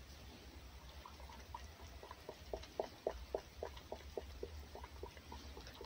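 Fox lapping egg from a saucer: short wet licks, about three or four a second, growing clearer about two seconds in.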